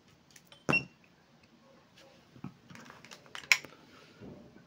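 Steel pliers handled against a glass jar of salt water: a few sharp clicks and clinks, the loudest about a second in with a brief ring, another about three seconds later, and faint small clicks between.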